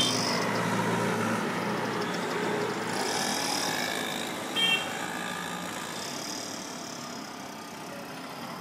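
Street traffic with auto-rickshaws and motorbikes running past. A low engine hum stops about a second and a half in, and a short, high horn beep sounds about four and a half seconds in.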